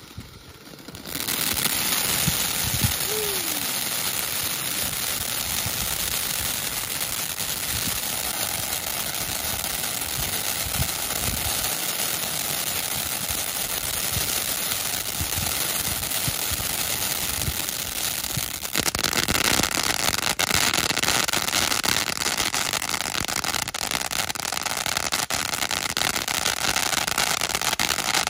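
Waikiki Lights 500g firework fountain spraying sparks, a loud steady hiss that begins about a second in. About two-thirds of the way through it grows louder and is joined by dense crackling.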